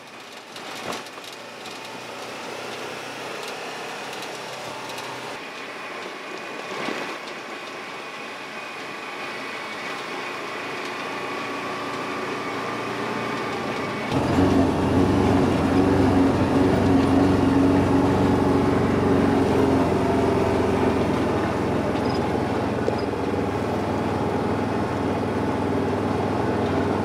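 A vehicle's engine running as it drives, heard from inside the cab, growing slowly louder. About halfway through it turns suddenly louder and deeper and stays steady.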